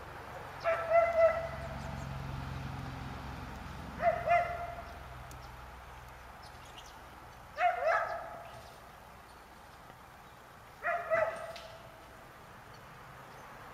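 An animal calling four times, about three and a half seconds apart. Each call is a quick double note with a slight downward slide.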